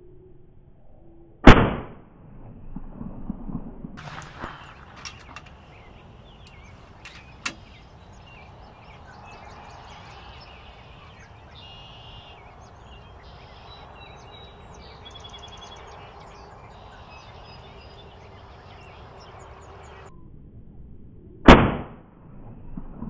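Two shots from an FX Impact PCP air rifle, each a single sharp crack, about twenty seconds apart: one a second and a half in, the other near the end. A few light clicks and knocks follow the first shot.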